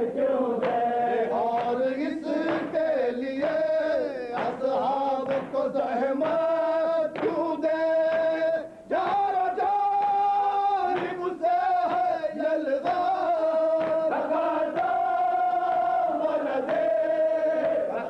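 Men chanting a noha, a Shia mourning lament, in chorus. They hold long sustained notes that step up and down in pitch, with a short break about halfway through.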